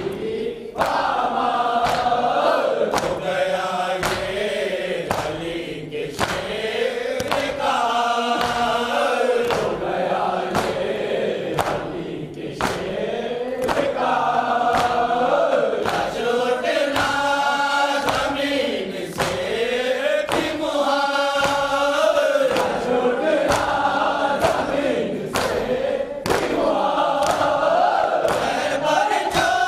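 Men's voices chanting a noha (Shia lament) in unison, one voice at the microphone leading the group, over a steady beat of hands striking chests (matam).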